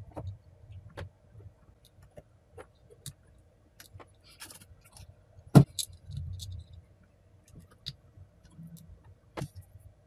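Scattered light clicks and taps of hand work with small tools and components over an open circuit board, with one sharper click about five and a half seconds in.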